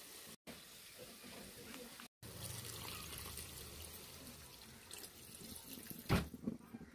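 Milky liquid pouring and splashing into a hot metal pan of fried brinjal and potato pieces. A plastic spoon stirs it in and knocks once sharply against the pan near the end.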